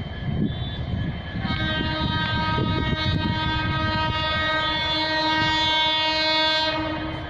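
WAP7 electric locomotive's horn sounding one long steady blast, starting about a second and a half in and stopping shortly before the end, over the rumble and clatter of the train's wheels on the track as it runs through a station without stopping.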